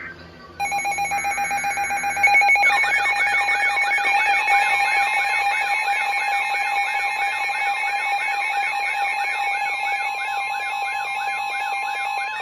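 Electronic emergency alert alarm for a weather warning. A rapidly pulsing steady beep starts about half a second in. About two seconds in, a warbling siren tone joins it, sweeping up and down about three times a second, and both keep sounding.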